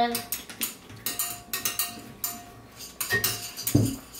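A string of light clinks and taps from sticks and small bottles knocking against glass and metal dishes on a wooden table, with one louder knock near the end.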